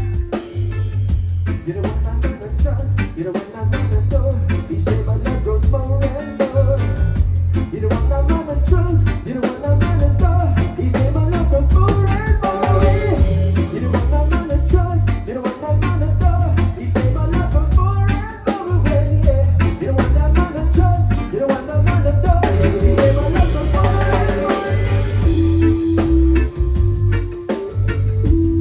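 Live band playing: drum kit driving a steady beat under bass guitar and electric guitar, loud and continuous.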